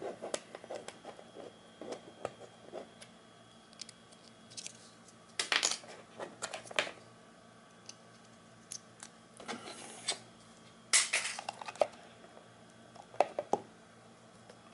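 Scattered sharp clicks and taps of small hard plastic parts being handled: a microSD card being picked up and plugged into a card reader. The loudest clicks come about five seconds in and again near the end.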